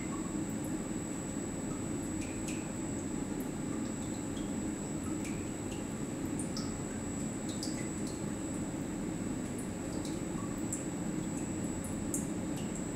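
Watson-Marlow peristaltic chlorine dosing pump running steadily during a calibration run: a low even hum with a thin high whine, and scattered small drips and ticks of liquid.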